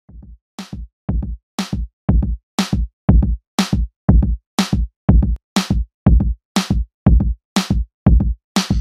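Background electronic music with a steady drum-machine beat, about two beats a second, fading in at the start.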